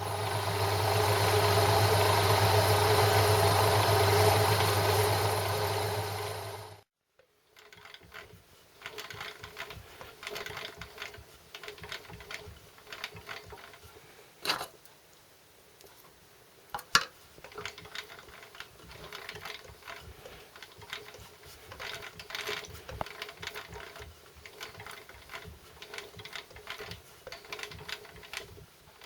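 Milling machine drilling a 1/4-inch hole: a loud, steady motor hum for about the first seven seconds stops abruptly. Then comes quieter, uneven cutting and scraping with a few sharp clicks as the hole is drilled through and reamed.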